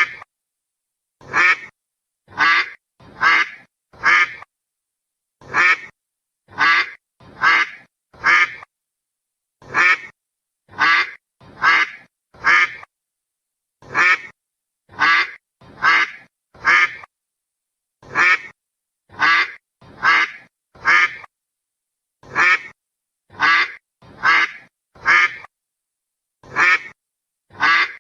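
Duck quacking in series of four quacks about a second apart, each series repeating every four seconds or so, with clean silence between the calls.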